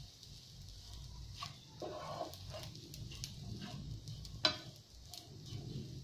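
Fried rice sizzling steadily in a nonstick frying pan while a plastic slotted turner stirs and scrapes it, with scattered taps of the turner on the pan and a sharp click about four and a half seconds in.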